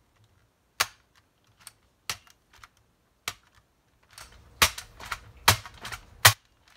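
Plastic mechanism of an unloaded Nerf Zombie Strike Hammershot blaster clicking and snapping as it is worked by hand: about seven sharp clicks spaced irregularly, the loudest three close together near the end.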